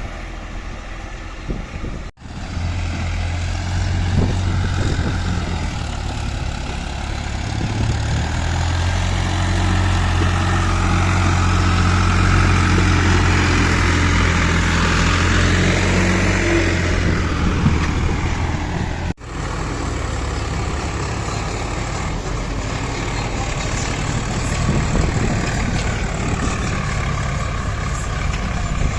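Heavy diesel engine running steadily under load, with a deep, even note. The sound breaks off abruptly twice, about two seconds in and again about two-thirds of the way through.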